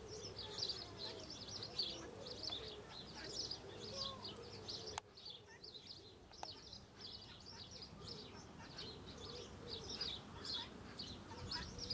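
Many small birds chirping continuously in the background, a busy run of quick, high chirps that softens suddenly about five seconds in and then builds back up.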